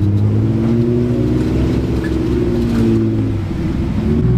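An off-road 4x4's engine running under throttle, its pitch rising and falling as the revs change, dipping briefly about three and a half seconds in before picking up again.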